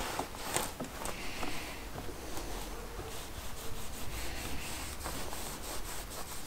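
A microfiber towel rubbing leather conditioner into leather straps, in many short back-and-forth strokes.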